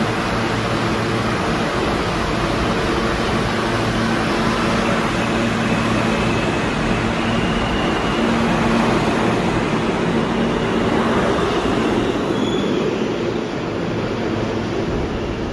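R160 subway train pulling out of the station and picking up speed, its wheels and motors running loud and steady on the rails. The sound eases a little near the end as the last car heads into the tunnel.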